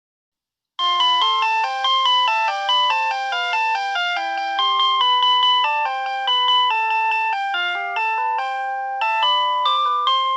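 Electronic school bell chime playing a melody of bright, bell-like tones, several notes sounding together and changing every fraction of a second, starting about a second in.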